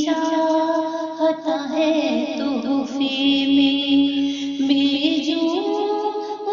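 A woman singing a naat, an Urdu devotional song, in long held, wavering notes.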